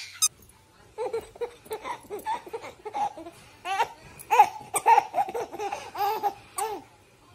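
A baby laughing in a run of short, repeated giggles, starting about a second in.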